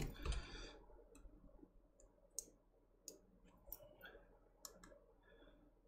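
Faint, scattered clicks and taps of an iPhone 8 battery's flex connector being handled and pressed onto the test module of a handheld battery tester, with a faint brief high tone near the end.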